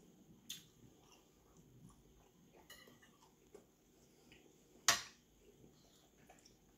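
Quiet eating sounds: a metal spoon scooping potato salad and clicking against a plate, with soft chewing between. The sharpest click comes about five seconds in.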